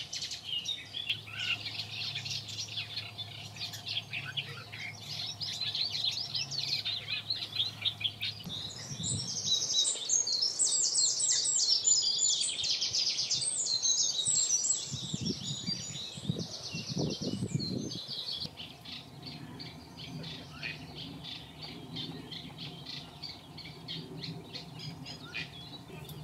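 Several songbirds singing and chirping at once, with many quick high notes that grow busiest and loudest near the middle. A brief low rumble comes about two-thirds of the way in.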